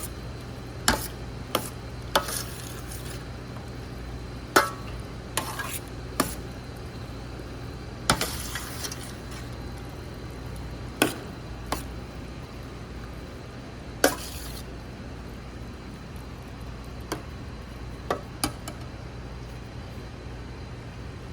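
A utensil stirring chicken pieces and teriyaki glaze in a hotel pan: irregular clanks and knocks against the pan, with a few short scraping stretches, over a steady low hum.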